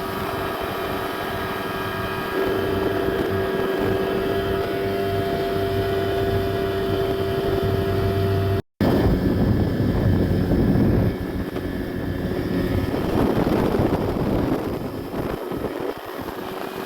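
Small ski boat's engine running steadily at speed, with rushing water and wind. It cuts off abruptly just under halfway through, and afterwards the rush of water and wind is louder and rougher over the engine.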